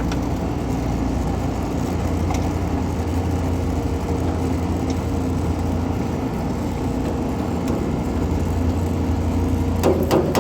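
Steady low mechanical hum of a running machine, with a quick run of sharp knocks near the end.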